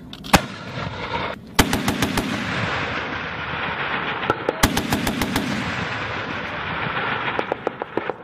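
Heavy automatic gunfire at a live-fire range. A single sharp shot comes just under half a second in, then two bursts of rapid fire, about a second and a half in and again about four and a half seconds in, each followed by a long rolling echo, with scattered sharp cracks throughout.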